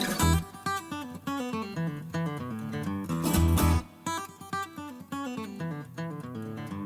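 Background music: acoustic guitar picking and strumming, with quick runs of plucked notes and a bass line.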